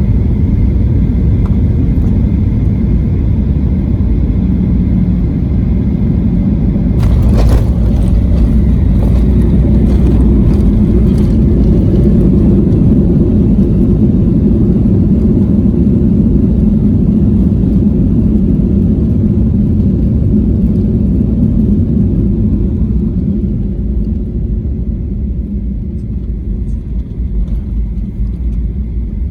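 Airliner cabin noise: a loud low rumble with a few sharp jolts about seven seconds in, after which it stays loud and then eases off over the last several seconds. This fits the touchdown and landing roll of the jet.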